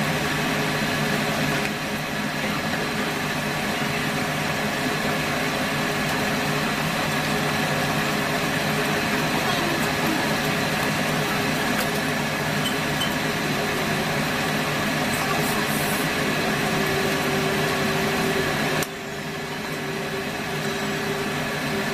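Steady whirring hum of a kitchen appliance fan. About three seconds before the end it abruptly drops in level and the high hiss falls away.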